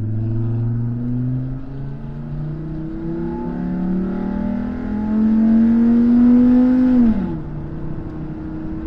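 Chevy Colorado pickup engine under full-throttle acceleration, heard inside the cab, its pitch climbing steadily with a couple of step changes as the automatic shifts up. It is loudest near the end, then drops sharply about seven seconds in as the throttle is released. The engine is running with its exhaust-manifold catalytic converter gutted.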